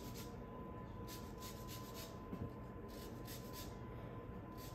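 Lemon peel being zested on a handheld rasp grater: faint scraping strokes in short quick runs.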